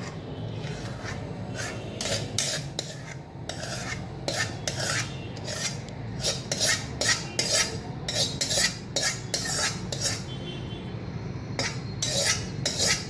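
A ladle scraping and scooping thick cooked pongal out of an aluminium kadai: a run of irregular scrapes and knocks of the utensil against the pan.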